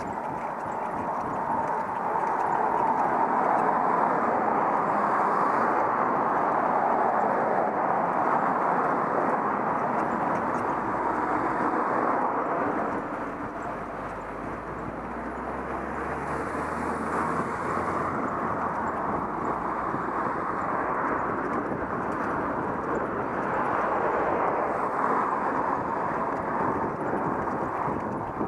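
Steady ride noise from a camera mounted on a vehicle moving along a narrow lane, with a slight dip about halfway through.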